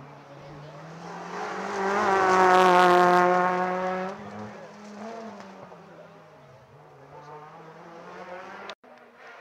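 Rally car accelerating past at full throttle on a hill-climb stage, its engine note held high and steady, loudest about two to four seconds in, then fading as it drives off up the road.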